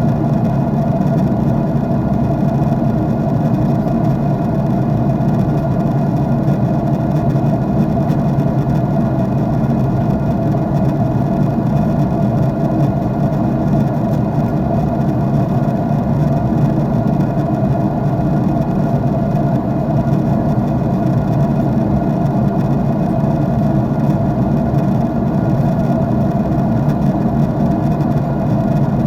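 Steady jet engine and airflow drone heard inside an airliner cabin in flight, an even low hum with a few faint steady tones and no change in level.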